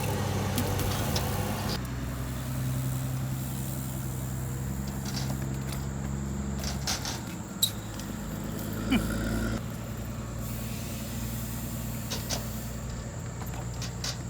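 A motor vehicle engine running steadily: a low, even hum that shifts in level a few times, with a few sharp clicks or knocks partway through.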